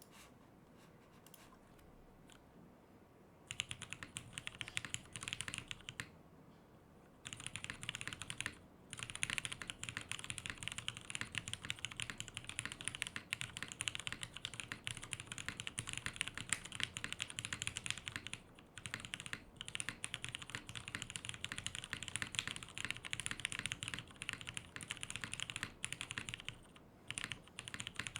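Typing on a top-mounted mechanical keyboard with lubed Cherry MX Vintage Black linear switches in an aluminium plate and CRP R4 keycaps: a fast, steady stream of keystroke clacks. It starts a few seconds in after a quiet moment, breaks off briefly, then runs on almost without a stop.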